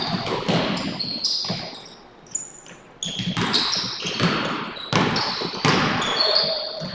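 Live basketball play on a hardwood gym floor: a basketball bouncing and sneakers squeaking in short high chirps, echoing in the hall.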